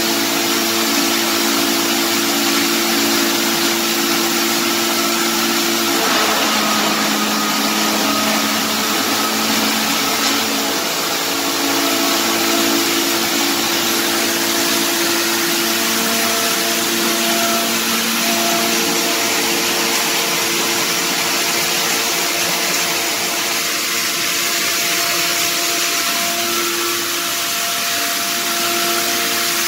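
A 7.5 kW three-phase electric hammer mill with a 3 mm screen running steadily under load, grinding woodchips into fine sawdust that is blown out through a flexible hose. It makes a loud, steady rushing noise with several humming tones, which shift slightly about six seconds in.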